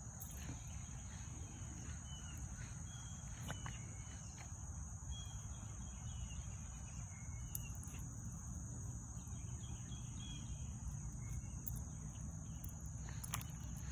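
Outdoor ambience of a steady, high-pitched insect drone with short bird chirps now and then, over a low rumble.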